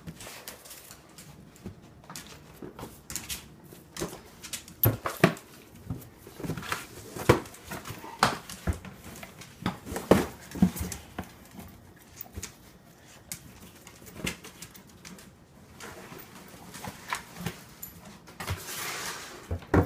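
A dog rummaging in a cardboard BarkBox: irregular rustling, scraping and knocking of cardboard and packing paper, with a longer rustle near the end.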